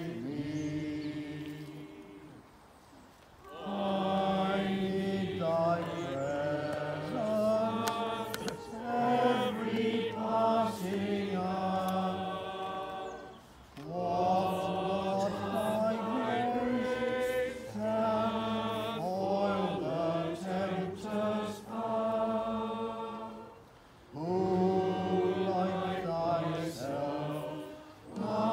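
Church choir singing in long phrases, with short breaks between them about 3, 14 and 24 seconds in.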